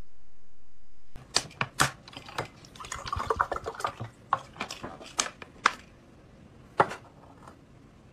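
Water poured from a plastic bottle into a drinking glass, with sharp clicks and crackles of the plastic bottle being handled. A brief steady tone comes first, in the opening second.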